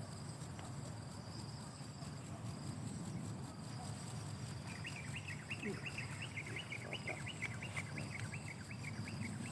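A small bird giving a fast chattering run of short notes, about five a second, starting about halfway through and lasting some four seconds, over a steady high trilling of insects.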